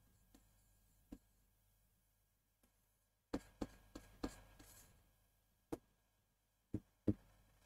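Light taps and short strokes of a stylus on an interactive display board as lines and a star are drawn: a single tap about a second in, a quick cluster between about three and five seconds in, then a few single taps near the end.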